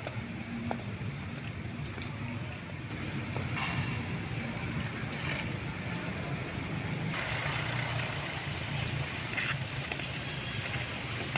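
Steady low background rumble, with a few brief higher-pitched sounds scattered through it.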